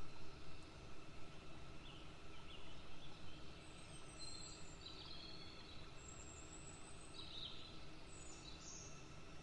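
Quiet background hum with a few short, high bird chirps scattered through it. There are soft rustles in the first few seconds as the plastic piping bag is squeezed.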